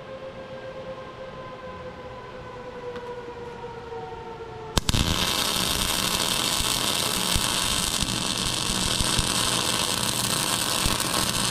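A machine hum with slowly falling tones, then about five seconds in an electric welding arc strikes with a click and runs with a steady loud crackling hiss, laying a bead into the gouged-out crack in a speed tiller's frame.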